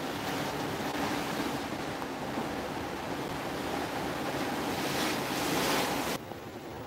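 Wind on the microphone and the rush of the open sea below a ship's balcony, a steady noisy roar that drops sharply in level about six seconds in.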